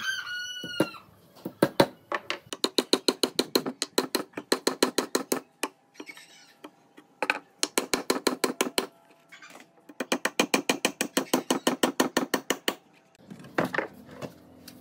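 Steel claw hammer driving nails into a joint between tree-branch logs: three runs of quick, light blows, about five a second, with short pauses between. A brief high squeal comes at the very start.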